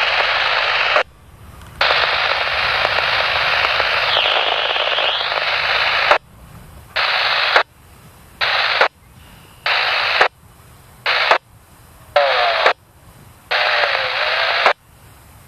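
Scanner radio static, a steady hiss that then switches on and off about once a second. Each burst starts with a sharp click as the squelch opens and shuts on a keyed transmission with no voice.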